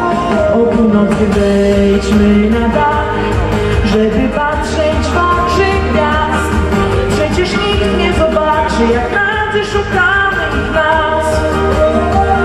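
A young woman singing a Polish pop song into a microphone over accompanying pop music with a steady beat.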